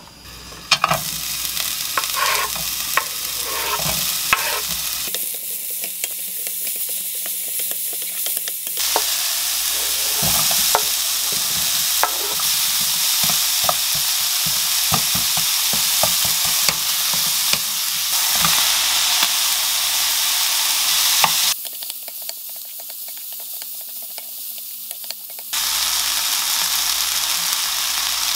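Oil sizzling in a nonstick frying pan as diced vegetables, ham and rice stir-fry for fried rice, with the repeated taps and scrapes of a spatula stirring. The sizzle starts about a second in and dips quieter twice.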